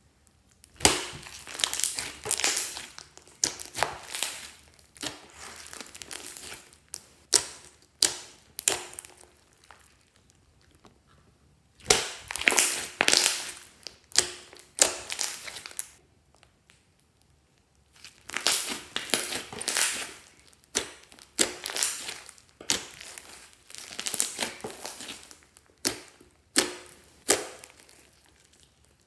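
Clear slime with mixed-in items being squeezed and pressed by hand, giving many sharp squishes and crackles in three runs with short pauses between them.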